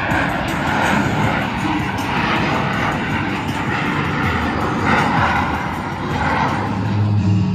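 Jet engine noise of Blue Angels F/A-18 Super Hornets in flight, a loud rushing roar that swells and eases a few times. Rock music with a steady bass line comes in near the end.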